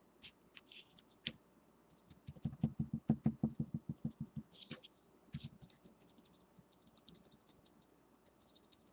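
Duct tape being worked by hand on a desk: scattered small clicks and taps, with a run of quick crackles from about two to four and a half seconds in.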